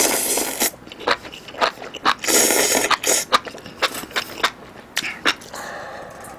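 Close-miked slurping of noodles from a hot pot, two long slurps, the first at the start and the second about two seconds in, followed by wet chewing with many short smacking clicks.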